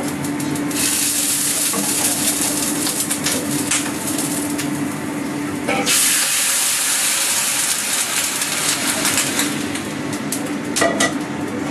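Hot water poured into a wok of hot oil over a gas flame, hissing and sizzling; the hiss starts about a second in and grows stronger about six seconds in. Scattered clinks of utensils, over a steady low hum.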